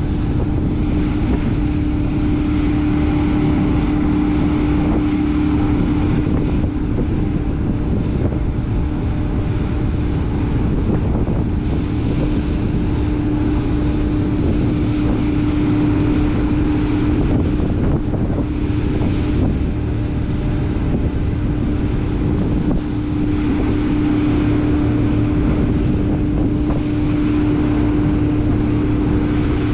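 Ro-Ro ferry MV Earl Thorfinn's engines and propellers running steadily under load as she berths, a constant deep hum over a low rumble. Wind buffets the microphone throughout.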